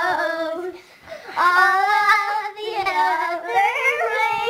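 Two young children singing together without accompaniment in long held notes, with a brief break about a second in.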